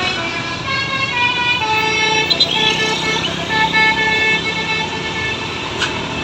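Bus 'telolet' melody horn playing a quick tune, several tones sounding together and stepping from note to note every fraction of a second.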